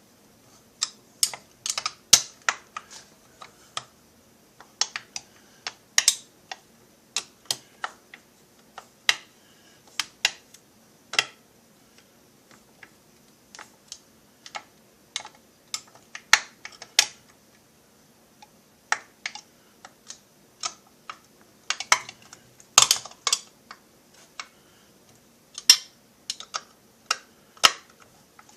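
Irregular sharp clicks and taps of small metal parts and hand tools being handled on a workbench as a chainsaw crankcase is screwed together.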